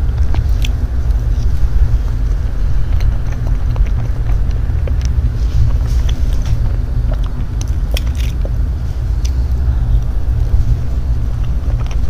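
Soft mouth sounds and small, scattered clicks of someone eating soft mousse cake close to a clip-on microphone, over a steady low rumble.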